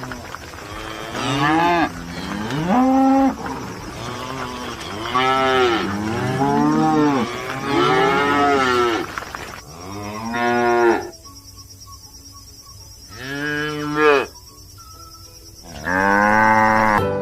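Cattle mooing repeatedly: about eight separate moos, each rising and then falling in pitch, with short pauses between them.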